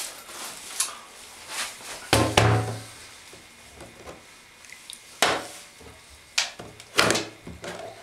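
Hard plastic clunks and knocks as the lid and body of a small plastic toy washing machine are handled, several sharp knocks, the loudest about two seconds in.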